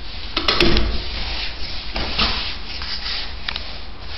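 Paintbrush bristles stroking along painted wooden door trim: a run of scratchy swishes, with a sharp click or knock about half a second in.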